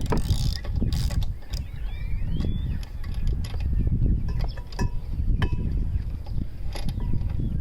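Hand tools working on a small push-mower engine, with scattered sharp clicks and a ratcheting wrench, as the spark plug is taken out for a look.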